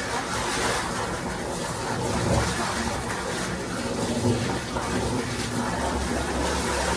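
Tap water running and splashing while clothes are washed by hand, a steady rushing noise.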